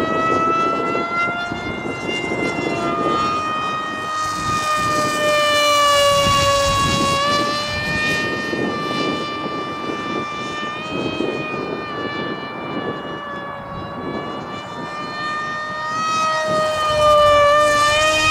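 Electric motor and propeller of a foamboard RC plane in flight: a steady whine that slowly rises and falls in pitch, swelling a few seconds in and again near the end. Gusty wind buffets the microphone underneath.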